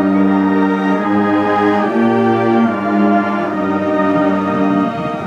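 High school marching band's brass and wind section playing slow, held chords that shift to a new chord about every second.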